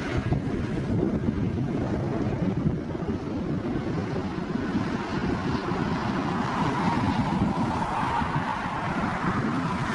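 Wind buffeting the microphone in a steady low rumble, with the faint whine of a landing jet's engines that grows a little stronger in the second half.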